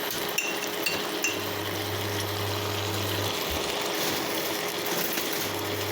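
Sliced beef sizzling as it stir-fries in oil in a pan, a steady hiss, with three light clinks in the first second and a half.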